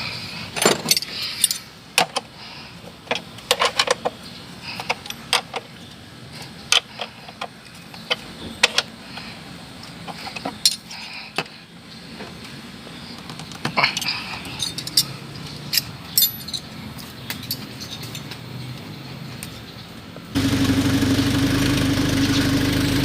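Scattered sharp clicks and knocks, then about twenty seconds in a car engine comes on abruptly and runs steadily with a low hum. It is a car that would not start, now running after a fault in its wiring was fixed.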